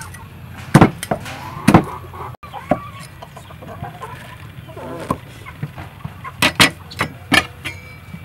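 A cleaver knocking on a wooden chopping board as it slices through king oyster mushroom stems, several sharp chops close together near the end. Earlier come a few single knocks from handling food on the board. Chickens cluck faintly in the background.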